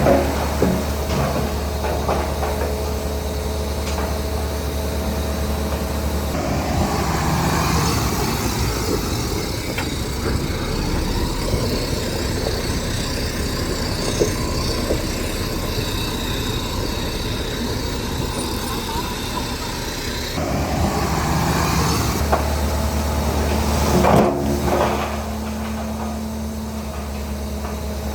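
Heavy earthmoving machine's diesel engine running steadily. It works harder under a rush of noise through the middle, with a sharp knock near the end.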